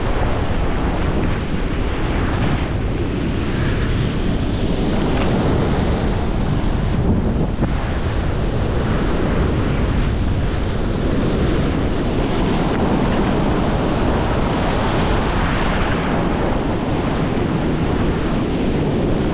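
Ocean surf washing in and out along the shore, with steady wind buffeting the microphone.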